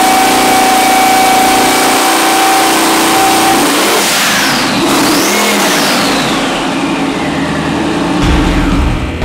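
Nelson Racing Engines 427 cubic-inch twin-turbo Chevy LS-based V8 running loud on an engine dynamometer. Between about four and six seconds in, a high whine falls and then climbs again. A deep low rumble comes in near the end.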